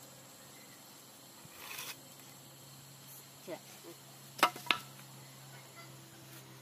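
Two sharp knocks of wooden planks striking each other, a quarter second apart, about two thirds of the way in, with a brief rustle of boards earlier.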